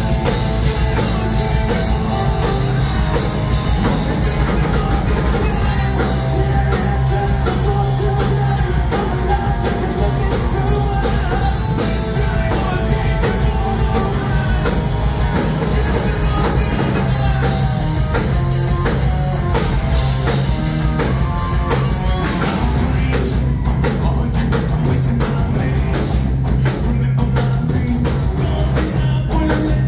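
Live rock band playing loudly: electric guitar, bass guitar and drum kit, with a singer, heard from the audience.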